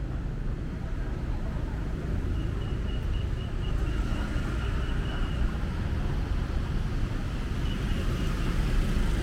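Street ambience: a steady low rumble of passing motor traffic that grows slightly louder, with a faint thin high tone heard twice.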